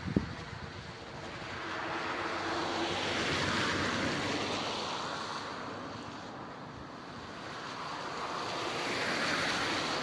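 Cars passing on a wet road: tyre hiss on the wet asphalt swells as one car goes by a few seconds in, then swells again near the end as another approaches close by.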